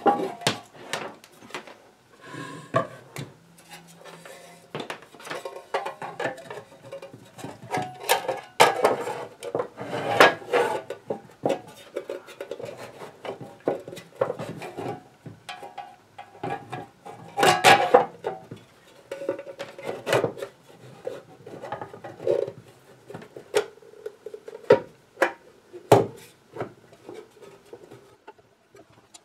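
Irregular clicks, knocks and light clatter of hard objects being handled on a workbench, with a louder cluster of knocks about a third of the way in and another a little past halfway.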